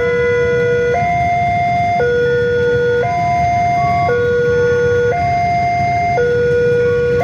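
Railway level-crossing warning alarm sounding a steady two-tone signal, switching between a lower and a higher note about once a second: the crossing is closed because a train is approaching.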